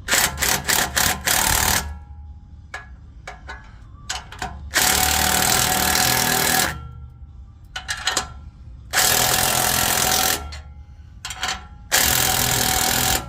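MIG welder joining exhaust pipe, run in four bursts of a second or two of loud crackling buzz, some with short stuttering starts, over a steady low hum.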